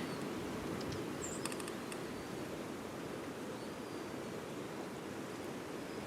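Steady rushing noise of blizzard wind, with a few faint high chirps and a short run of light clicks about a second and a half in.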